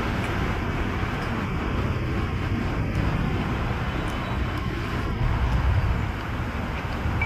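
Steady rushing background noise of electric fans and street traffic, swelling slightly about five and a half seconds in.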